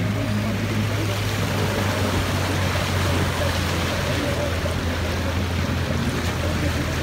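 Floodwater rushing and splashing steadily as a vehicle ploughs through it, with a steady low engine drone underneath.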